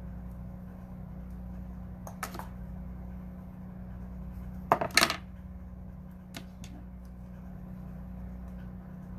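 Hair tools handled close to the microphone: a few light clicks about two seconds in and a short, louder clatter of clicks about five seconds in, over a steady low hum.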